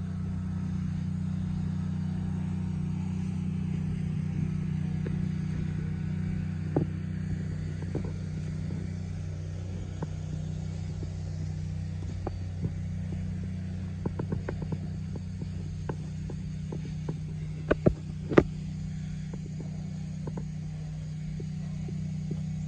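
New Holland TC40A compact tractor's diesel engine idling steadily. Scattered sharp clicks over it, with a few loud knocks about three-quarters of the way through.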